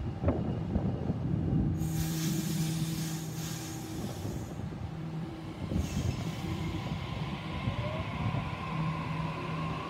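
Sydney Trains Waratah B-set electric train pulling into the platform, with a steady low electrical hum from its traction equipment. Bursts of hiss come about two and six seconds in, and a thin whine slides in pitch near the end.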